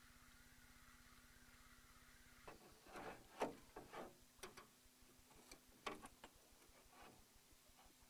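Near silence with a faint steady hum. From about two and a half seconds in come irregular light clicks and taps, the loudest a sharp tick about a second later.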